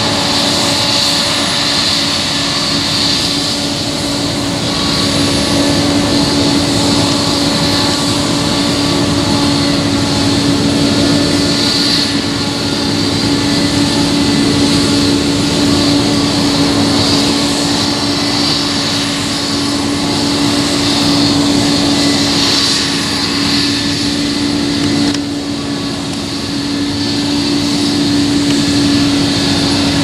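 New Holland CR8.90 combine harvester working in wheat while it unloads grain through its auger into a trailer, with a New Holland T7 tractor running alongside. The machinery makes a steady, loud drone with a constant hum and a high hiss, dipping briefly near the end.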